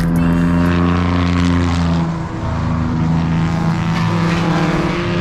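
Race car engine running hard at steady high revs, its note dropping briefly about two seconds in and then climbing back and holding.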